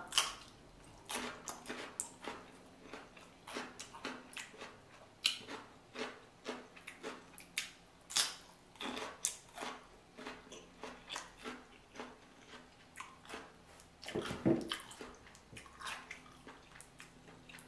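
Close-miked chewing of king crab meat: soft, irregular wet smacks and clicks of the mouth, about one or two a second, with a short voiced hum about three quarters of the way through.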